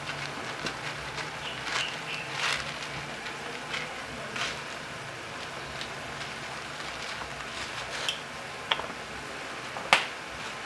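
Kuhol (snails) and greens boiling hard in coconut milk in a pot: irregular pops and crackles of bursting bubbles, with a few louder pops near the end, over a low steady hum.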